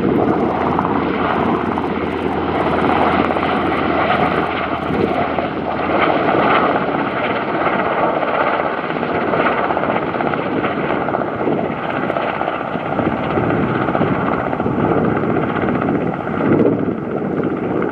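Sikorsky CH-148 Cyclone helicopter taking off and climbing away, its rotors and turbine engines running loud and steady, with a steady high whine over the rotor noise.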